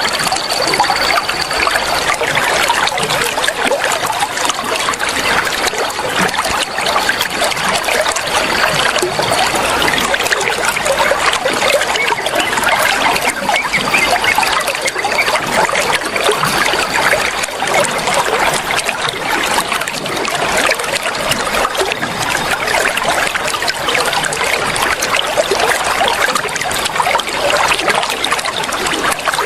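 Flowing water trickling steadily and without a break.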